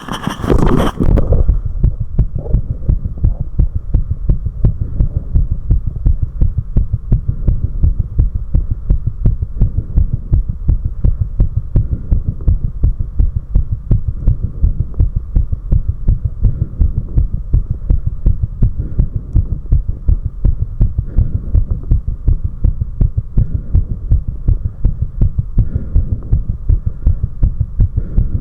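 A human heartbeat heard close up: a steady, fast run of deep lub-dub heart sounds, quickened after four minutes of step-up exercise. A short burst of noise covers the first second or so.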